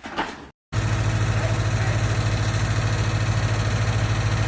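A steady, low mechanical drone with a strong low hum and its overtones, starting abruptly after a brief dropout just under a second in.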